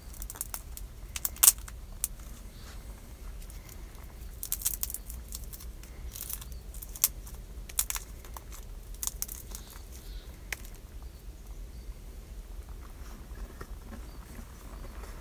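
Shells of fire-roasted chestnuts cracking and crinkling as they are peeled by hand, in sharp, scattered snaps. The loudest snaps come about a second and a half in and again around seven seconds in, over a low steady rumble.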